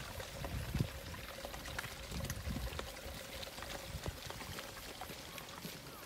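Water running and trickling in a small irrigation channel, with occasional footsteps on a concrete path.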